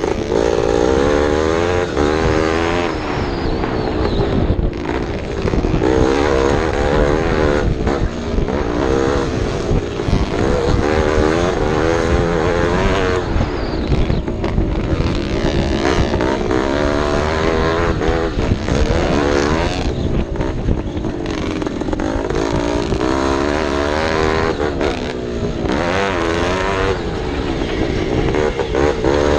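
Vintage racing motorcycle engine running hard, its pitch climbing and dropping again and again as it revs up and shifts or backs off.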